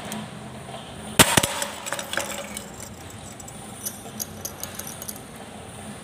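Pressed sheet-metal cup component set down hard on a hard surface: a sharp metallic clatter about a second in with a second knock right after, then a few smaller rattles. Later come several light metallic ticks.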